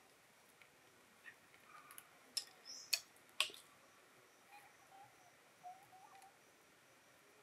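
Kittens' claws and paws clicking and tapping on a wooden branch and bamboo slats as they climb, with three sharper clicks about half a second apart near the middle.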